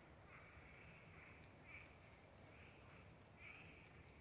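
Near silence: faint outdoor ambience with a faint animal call repeating about once a second over a steady high thin whine.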